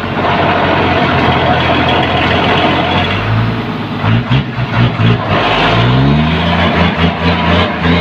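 REO 6x6 truck's engine running hard under a heavy load of bamboo in deep mud, revving up with a rising pitch about four to six seconds in and then holding at the higher speed.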